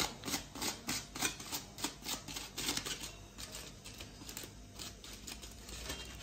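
Aluminium foil crinkling and crackling as hands pull it back from a baking tray, in a quick run of short crisp crackles that thin out after about three seconds.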